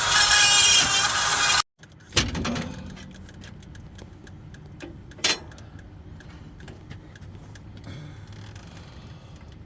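Loud music that cuts off abruptly about a second and a half in, followed by a hard knock with a ringing tail and a second sharp knock a few seconds later, over quiet background noise.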